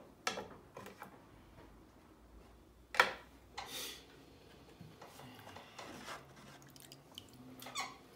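Wet clay being shaped by hand on a spinning potter's wheel: scattered small clicks and rubbing sounds over a faint low hum. A sharp knock about three seconds in is the loudest sound, followed by a short hissing rub.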